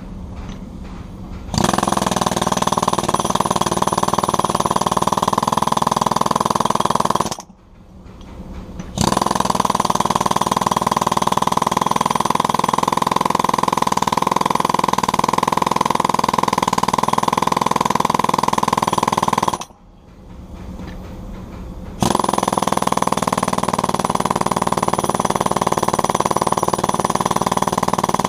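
Jackhammer chiselling into fiber-reinforced concrete in three long runs, stopping twice for a second or two.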